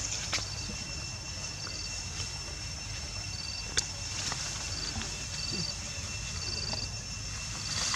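Insects chirping outdoors in short high trills, repeating about once a second over a steady high whine, with a few scattered clicks and one sharp click a little before the middle.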